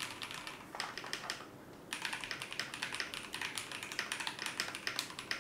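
Typing on a custom mechanical keyboard with Holy Panda tactile switches: scattered keystrokes at first, then fast continuous typing from about two seconds in.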